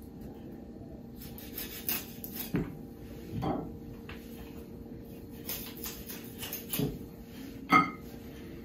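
Knife cutting and trimming a raw duck on a wooden cutting board: scattered soft cuts and scrapes, with light knocks of the blade on the board and a sharper knock near the end.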